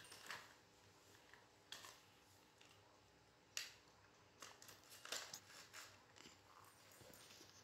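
Near silence: a quiet room with a few faint scattered taps and rustles, the sharpest about three and a half seconds in and a small cluster around five seconds.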